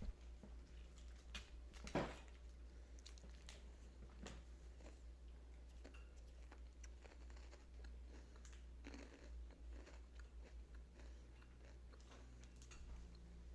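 Parrot nibbling and crunching a corn snack: faint scattered crunches and clicks, with one sharper crack about two seconds in.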